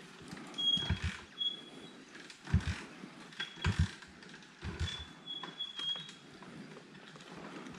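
Honda XR250 Tornado's single-cylinder engine being kicked over, several low thumps about a second apart, without catching: the engine is flooded.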